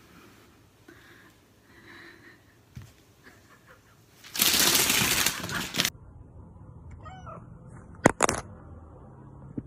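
A loud, even rushing scrape lasting about a second and a half. After it, a cat meows briefly, followed by two sharp knocks.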